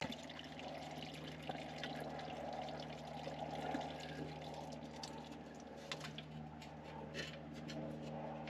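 Transmission fluid draining from the edge of a loosened transmission pan: a faint, steady trickle, with a few light clicks.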